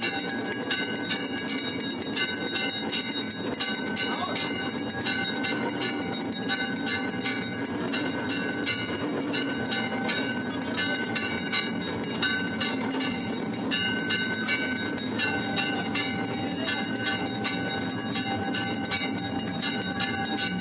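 Temple bells ringing continuously for an aarti: many bells struck over and over in a dense, steady clangor, with ringing tones that come and go.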